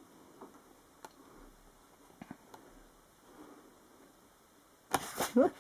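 Faint paper sounds of a paperback comic book's pages being turned, a few soft ticks and rustles. Near the end, a sudden loud breath followed by a short rising voiced sound.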